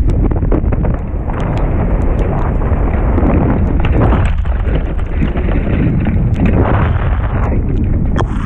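Wind buffeting the microphone of a masthead camera on a sailboat: a loud, steady rumble with scattered sharp clicks.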